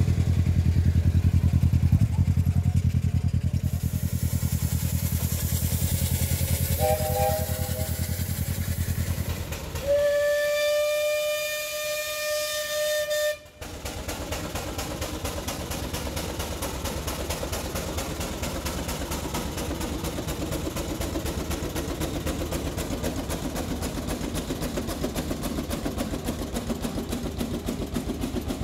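Steam whistle blowing one long, steady blast of about three and a half seconds, starting about ten seconds in and cutting off suddenly, with a short, quieter whistle toot a few seconds before it. Before the whistles an engine hums with a low, even pulse. After them a steam engine runs with a steady rapid beat.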